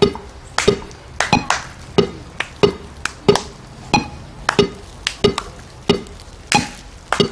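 Djembe hand drums struck one stroke at a time in a steady pulse of about three strokes every two seconds, with a few extra strokes slipped in between.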